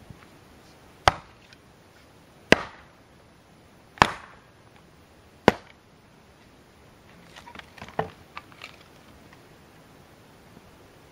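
Fiskars X17 splitting axe chopping kindling from a log on a chopping block: four sharp strikes about a second and a half apart. Then comes a short run of lighter knocks.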